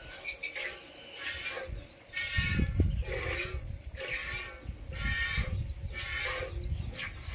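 Goat being hand-milked: jets of milk squirting into a steel pot in a steady rhythm, about one squirt every two-thirds of a second. A low rumble rises about two and a half seconds in.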